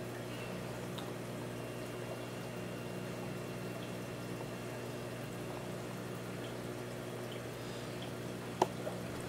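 Aquarium filter running: a steady low hum with faint water trickling. One short click near the end.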